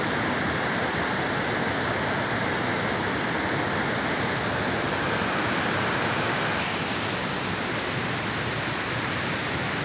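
Steady rush of creek water running fast over rocks and small rapids. The sound turns a little duller about seven seconds in.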